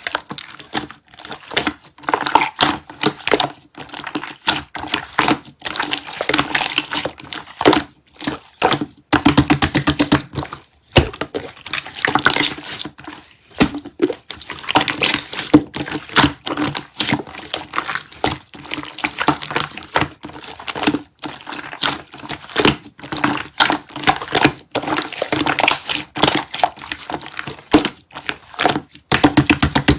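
Slime being squeezed and pressed by hand, giving a dense, irregular run of wet clicks, pops and crackles.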